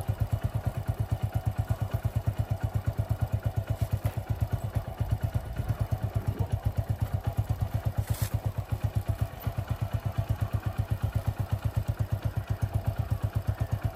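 Hero Honda motorcycle's single-cylinder four-stroke engine idling with an even, rapid exhaust beat. A short sharp clatter about eight seconds in.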